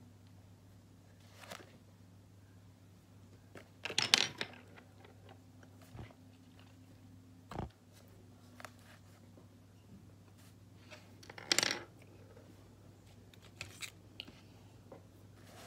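Scattered short scrapes and taps from small objects being handled close to the microphone, the loudest about four seconds in and again about eleven and a half seconds in, over a steady low hum.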